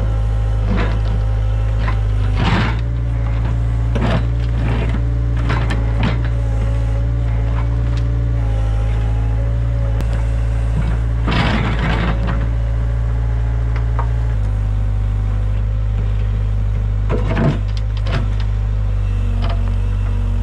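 Hitachi EX75UR excavator's diesel engine running steadily as the bucket digs into soil and tree roots, with scattered clunks and a longer scrape about halfway through.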